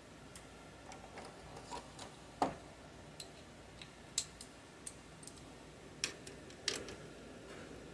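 Scattered sharp metal clicks of a wrench working the nut on the alternator's main output cable stud as it is run down and tightened. The loudest click comes about two and a half seconds in.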